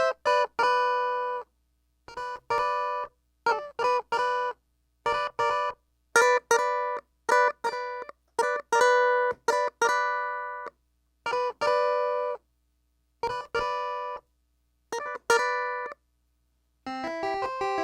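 Clavinet playing a funk riff of short, clipped chord stabs with brief silences between them; about a second before the end a busier run with lower notes starts.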